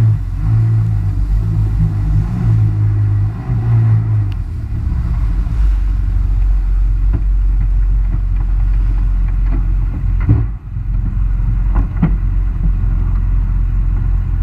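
Jet ski engine running fast through the water with its hull hissing, then throttled back about four seconds in to a lower, steadier rumble as the craft slows. A few short knocks come in the second half.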